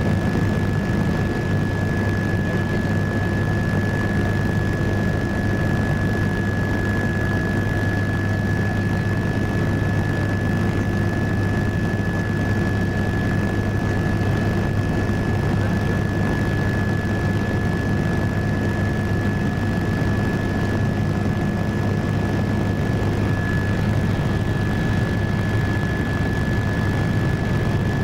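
Helicopter in flight heard from inside the cabin: a steady low engine and rotor drone with a thin, steady high whine above it.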